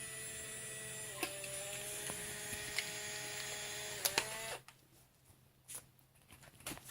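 Fujifilm instant camera's small motor running for about four and a half seconds as it pushes out a freshly exposed print, a steady whine with a click partway through and a couple of clicks just before it cuts off.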